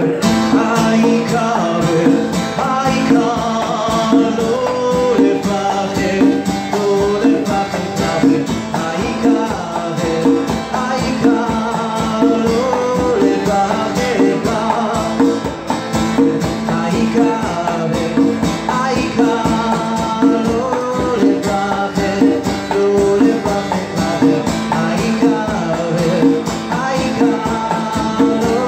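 Live acoustic guitar and hand-played Meinl conga drums in a steady rhythm, with a man singing, coming in suddenly at the start.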